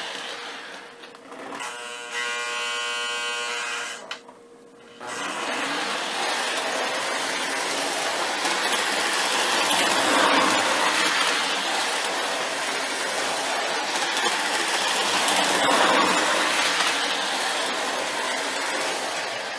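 Lionel O-gauge GP-20 model diesel locomotive running on three-rail track: its electric motor and gears whir as the wheels roll, swelling louder about ten seconds in and again around sixteen seconds as it passes close. Near the start a steady pitched tone sounds for about two seconds, then the sound drops away for a moment.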